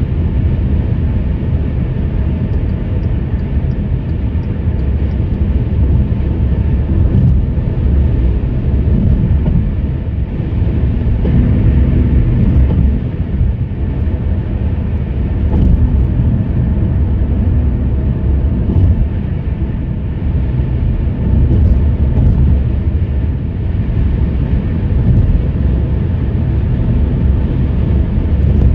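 Tyre and road noise of a 2017 Hyundai Elantra SE at highway speed, heard from inside the car: a steady low rumble with a few faint light ticks now and then.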